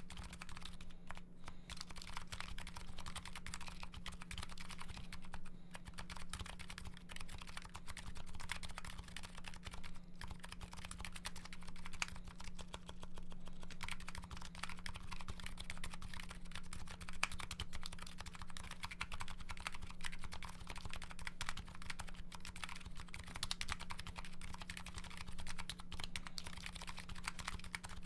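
Continuous fast typing on a Nuxros Kraze custom keyboard fitted with MetaKeebs MetaPulse electro-capacitive switches and GMK Hennessey keycaps: a dense stream of key clacks with no pauses. A steady low hum runs underneath.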